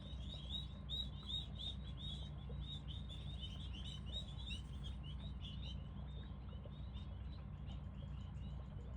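Many small birds chirping busily and without pause, short quick chirps overlapping, over a steady low hum.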